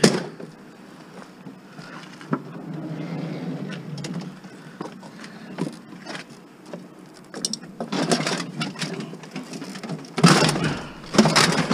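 A heavy water dispenser being handled and loaded into a van: a knock as it is lifted, shuffling and rubbing, then two loud scraping bursts near the end as it is shoved in against the van's body.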